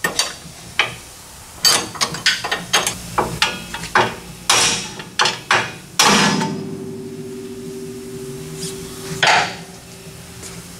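Hammer blows on the steel steering knuckle of a 1968 Camaro's front suspension, driving the ball joint studs loose from their tapers. A quick, irregular run of metal strikes is followed about six seconds in by a heavy blow that leaves the metal ringing for about three seconds, then one more strike.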